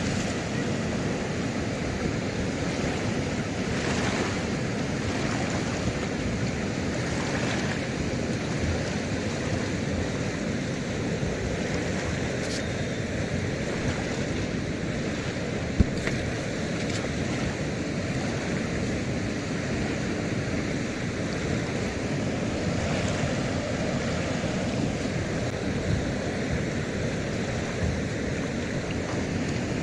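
Fast-flowing, turbulent river water rushing steadily, with one sharp click about sixteen seconds in.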